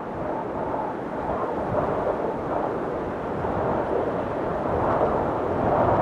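A steady rushing, rumbling noise with no clear pitch, slowly swelling louder toward the end.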